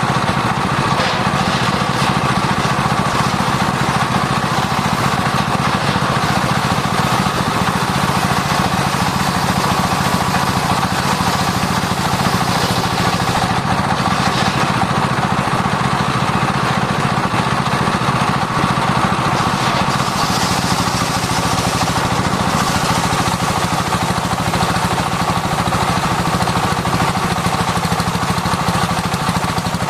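Sawmill circular saw running steadily, its blade cutting sengon (albizia) wood, with a steady machine hum. The high hiss of the cut swells a couple of times, about halfway through and again some seconds later.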